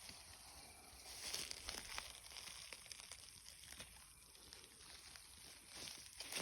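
Faint rustling and crackling with scattered light clicks.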